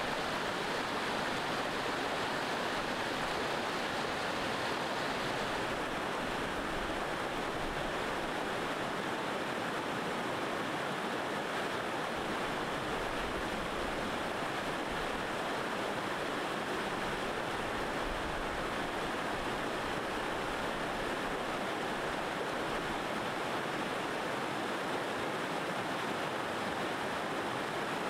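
Shallow river rapids rushing over rocks: a steady, even roar of white water.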